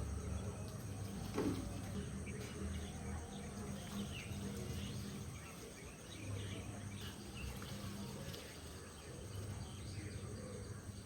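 Faint background ambience: a steady low hum with scattered small chirps, like birds or insects, and a single tap about a second and a half in.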